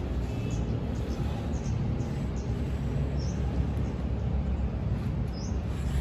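Steady low outdoor rumble, like distant traffic, with short faint high bird chirps scattered through it.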